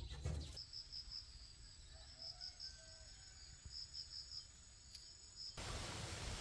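Insects chirping in short, high, repeated trills, faint over a low rumble. Near the end this gives way abruptly to a louder, steady rushing hiss.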